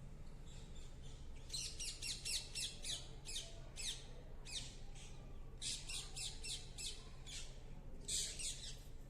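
Pet parrots chirping: quick runs of short, high chirps that each drop in pitch, coming in several bouts with brief pauses between them.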